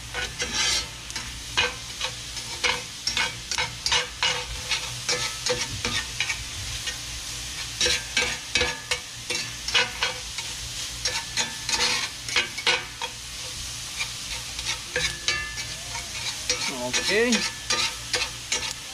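A metal slotted spatula repeatedly scraping and knocking against a cast iron skillet as dove meat, onion and garlic fry in oil, with a steady sizzle underneath.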